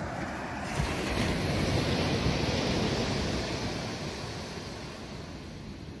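Atlantic surf: a wave breaks on the beach, a noisy wash that swells about a second in and dies away over the next few seconds.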